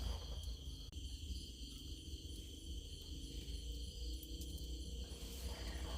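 Insects chirring steadily in several high, unbroken tones, one of them pulsing rapidly, over a low rumble.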